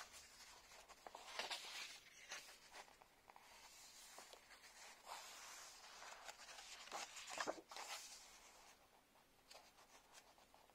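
Pages of a paperback book being turned and pressed flat by hand: faint, irregular paper rustling and swishing, loudest about a second and a half in and again around seven seconds in.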